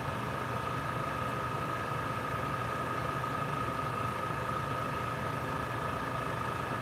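A small electric motor runs steadily in the airbrush painting setup, a constant hum with a thin, steady whine over it.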